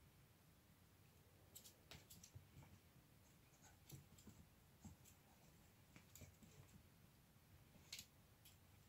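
Faint, irregular clicks and scuffs of a Yorkshire terrier puppy playing with a toy, coming in small clusters with quiet gaps between them.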